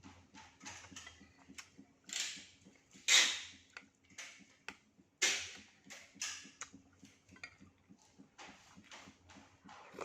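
Close-miked eating sounds: many small wet mouth clicks and smacks of chewing, with a few louder slurping bursts, the strongest about three and five seconds in, from durian and mung bean porridge.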